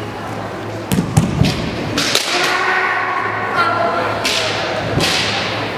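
Kendo exchange: bamboo shinai clacking together in a quick cluster of sharp cracks about a second in, with thudding foot stamps on the wooden floor, then a long drawn-out kiai shout, and two more sharp shinai strikes near the end.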